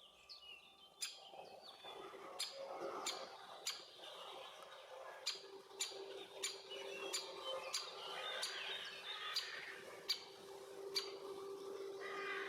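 Great spotted woodpecker giving sharp single 'kik' call notes, about fifteen spaced half a second to a second apart. Softer songbird chirping runs underneath, and a steady low hum sets in after about five seconds.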